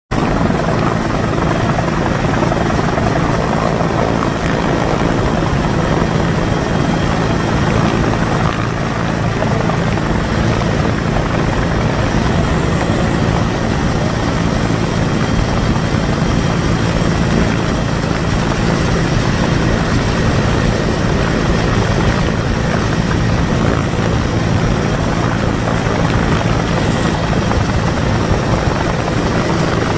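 Helicopter rotor and turbine engines running steadily at a hover. The sound is loud and close, heard from a camera at the open cabin door.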